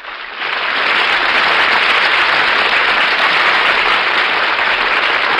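Studio audience applauding, swelling up over the first half second and then holding steady.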